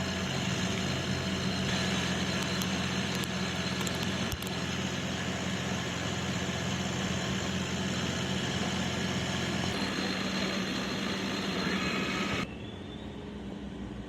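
DIY CNC machine running while milling a rectangular pocket: a steady mechanical drone with a low hum and a high hiss. About twelve and a half seconds in it drops suddenly to a quieter, duller drone.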